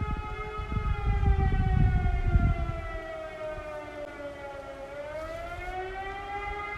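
Civil-defence siren sounding for the annual siren test, a wail with several overtones. Its pitch slides slowly down for about two seconds and then climbs back up to its steady tone. Low rumbling noise sits under it for the first couple of seconds.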